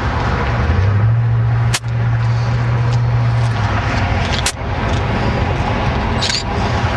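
Wind buffeting the camera microphone: a steady, loud low rumble with hiss, broken by two short clicks about two seconds and four and a half seconds in.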